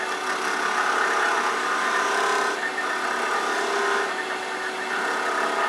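Wood lathe running with a steady motor hum while a skew chisel takes a light finishing cut on a small spinning piece of wood, a hissing cutting noise that swells and eases a few times.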